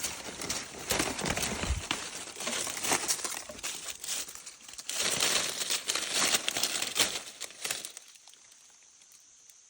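Dry crinkling and rustling made of many small crackles; it stops about eight seconds in.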